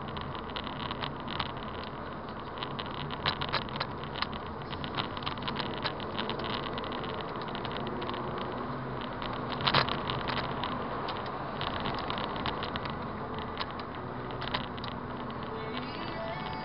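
Car driving at road speed, recorded from inside the cabin by a dashcam: steady engine and tyre noise with frequent sharp clicks and crackles.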